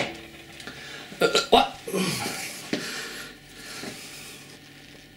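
Handling noise from the removed drain pump motor parts of a Miele W933 washing machine: a few light clicks and knocks about a second in, then a soft rustling as the parts are turned over in the hands. A short grunt-like vocal sound comes in among the knocks.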